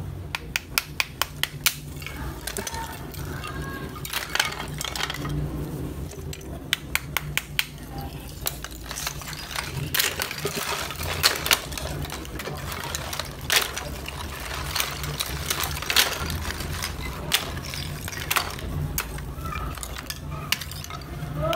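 Brittle slabs of roasted multani mitti (fuller's earth clay) clicking and clinking against each other as they are handled and sorted. A quick series of light taps near the start comes from a small hammer tapping the slabs, then separate sharp clicks follow through the rest. A steady low hum runs underneath.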